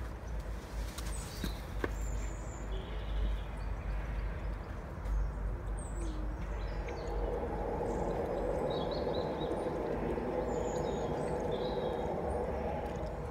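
Garden ambience: small birds chirping now and then over a low rumble. A steady hum builds from about halfway through.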